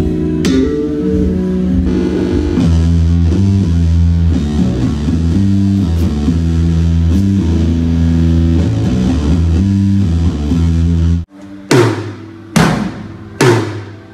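Custom-built electric bass played through an amp: a run of sustained low notes stepping in pitch, cutting off abruptly about eleven seconds in. Then sharp hits, about one a second.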